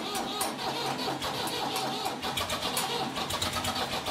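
An old tractor engine running, with a rough clatter of uneven ticks and knocks over a steady low hum.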